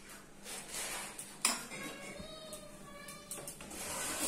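A spoon scraping and knocking against a pan while spreading pancake batter, with one sharp clink about a second and a half in and smaller taps after it.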